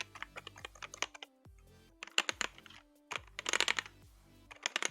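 Fast typing on a Tt eSports by Thermaltake Knucker gaming keyboard, a little louder than a quiet membrane keyboard, in about four quick runs of key clicks with short pauses between. Background music plays underneath.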